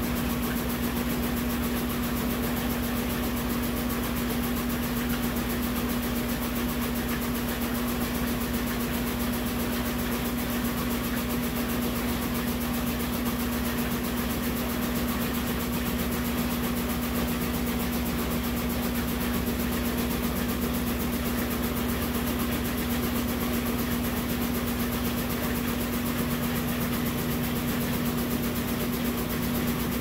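Brastemp 14 kg top-load washing machine spinning its basket with an unbalanced load of rugs and floor cloths, running with a steady hum. A second, lower hum joins near the end.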